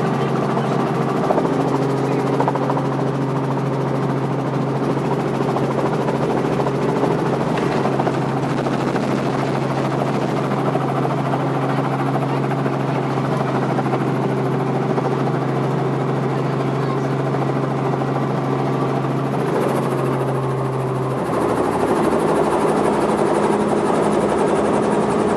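Helicopter running steadily, a constant engine-and-rotor drone with a steady low hum. About 21 seconds in, the hum drops in pitch and the sound changes.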